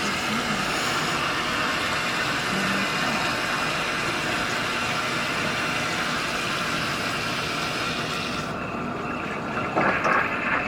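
Water rushing steadily through a tankless water heater's service valve and out of the drain, a fresh-water rinse after descaling. About eight seconds in the hiss thins and loses its top, followed by a few clunks near the end.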